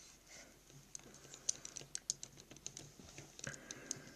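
Irregular small sharp clicks and light handling noise from a plastic HGUC Zaku II model kit as its arm and shoulder joints are moved by hand.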